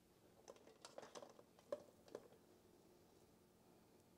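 Faint taps and clicks of a plastic rice paddle against a ceramic bowl as fried rice is spooned and pressed into it: about six light taps, stopping a little past two seconds in.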